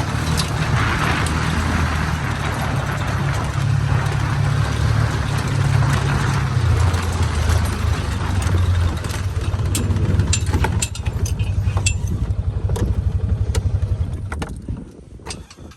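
A motor vehicle's engine running steadily as it drives, its pitch shifting about halfway through, with rattling clicks in the later seconds; the engine sound dies away near the end.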